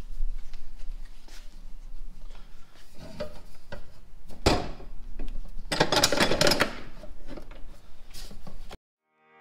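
Steel exhaust pipe being handled and clamped into a chop saw's vise: irregular knocks, scrapes and rubbing, with a louder scrape about four and a half seconds in and a rattle about six seconds in. The sound cuts off abruptly near the end.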